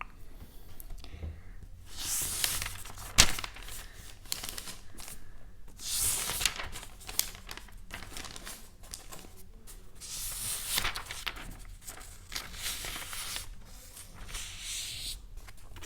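Crinkly material handled in repeated bursts of crinkling and rustling, with one sharp tap about three seconds in.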